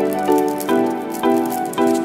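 Background music: a pop instrumental with short, repeated chords struck about twice a second, each fading before the next.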